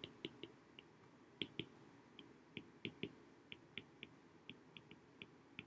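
Stylus tip tapping on an iPad's glass screen while handwriting: a faint, uneven run of small clicks, about four a second.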